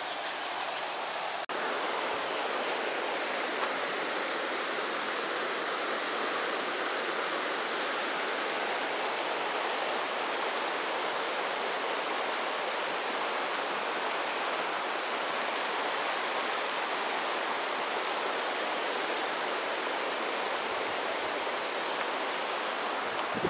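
The Khosta River, a mountain river, rushing over stones in a steady, even roar of water.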